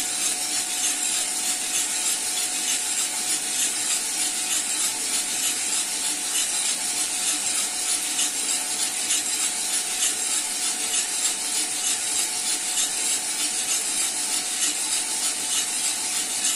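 Cormorant CR600 electric drum coffee roaster running early in the roast: coffee beans tumbling and rattling in the rotating drum over the steady sound of its motor and fan.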